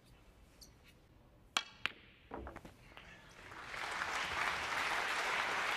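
Snooker balls clicking together twice in quick succession, then a few duller knocks as a red drops into a pocket. A few seconds in, audience applause swells up and holds.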